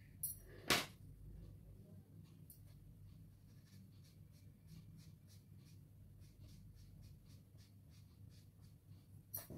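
Faint, repeated short strokes of soft pastel on paper, like light scratchy writing. Two light clicks near the start, as a pastel stick is set down on the table.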